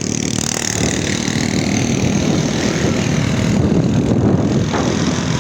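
A motor vehicle's engine running steadily, with a hiss over it.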